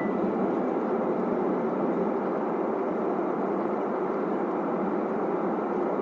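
Steady cabin noise of a jet airliner in flight, heard from inside the cabin: an even, unchanging noise of engines and airflow.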